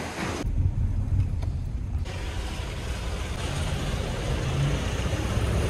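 Steady low rumble of a car's engine and tyres while driving on a highway.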